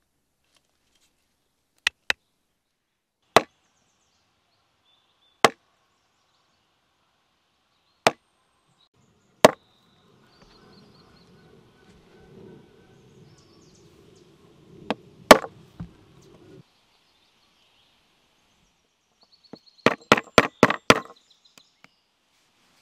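Mallet strikes on a leather pricking iron, punching stitching holes through leather into a wooden board: single sharp knocks a second or more apart, then a quick run of about eight strikes near the end.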